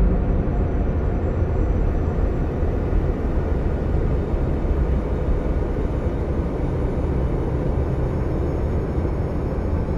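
Deep, steady rumbling drone of an ambient 'planet sound' piece, a continuous low roar with no distinct events.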